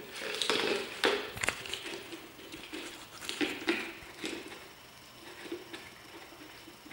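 Malamute puppy licking and gnawing at a plastic peanut butter jar: an irregular string of plastic crackles and knocks, with the jar shifting on the concrete floor. It is busiest in the first half and again around three and a half seconds in, then settles to softer ticking.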